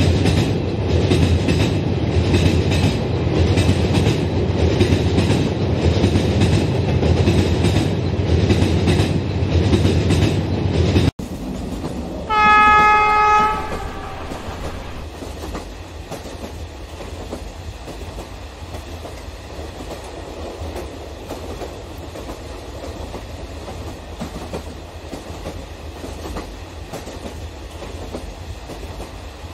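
HO scale model freight train of container flat wagons running on plastic sectional track, its wheels clicking rhythmically over the rail joints, loud and close. About eleven seconds in the sound drops suddenly. A single diesel-locomotive horn blast of about a second and a half follows, and then quieter, steady running noise of the train.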